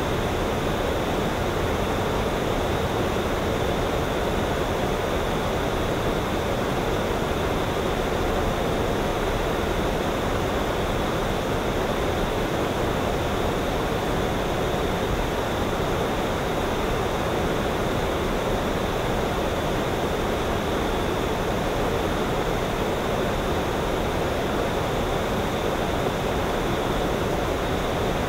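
A steady, even rushing noise with no separate events.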